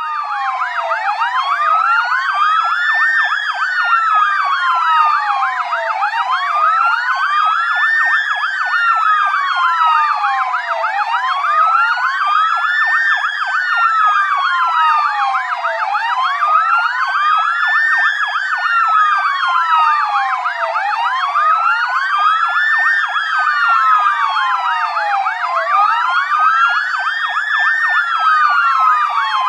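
Police siren sound effect in a slow wail, the pitch rising and falling about every five seconds. Two wails overlap slightly out of step. It starts abruptly and keeps a steady level throughout.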